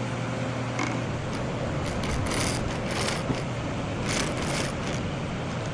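A machine tool running with a steady hum, with several short hissing, scraping bursts over it during thread cleaning.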